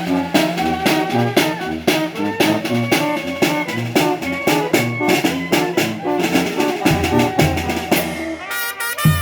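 Mexican banda brass band playing live: a bouncing bass line under brass and a steady drum beat. Near the end the bass and drums stop for a moment, then the beat comes back in hard.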